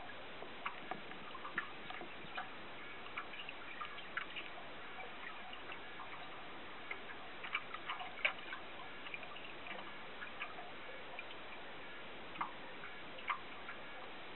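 Underwater ambience picked up by a submerged camera: a steady hiss with irregular small clicks and ticks, a few a second, a couple of them louder near the middle and near the end.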